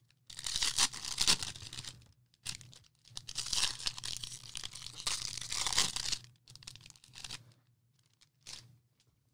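Baseball card pack wrappers being torn open and crinkled by hand, in two long bursts and a shorter one, then a few brief rustles near the end.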